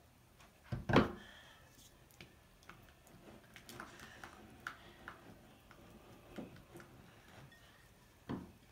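A sharp knock about a second in, then scattered light clicks and taps of a silicone spatula stirring slime mixture in a glass bowl, with another knock near the end.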